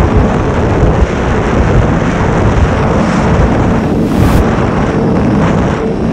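Wind buffeting the microphone on a Yamaha YZF-R6 sportbike under way, with the bike's inline-four engine running steadily beneath it.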